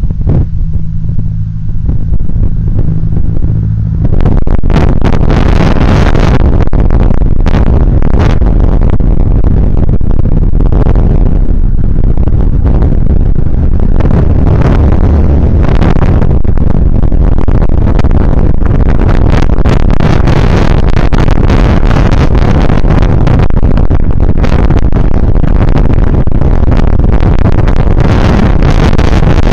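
Loud wind buffeting on a bicycle-mounted camera's microphone while riding along a road, mixed with passing road traffic. A low steady hum is heard for the first few seconds before the rushing noise sets in.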